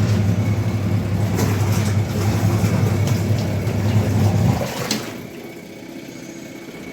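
Single-tub washing machine starting its wash cycle: the wash motor runs with a steady electric hum. The hum drops away about five seconds in and comes back near the end.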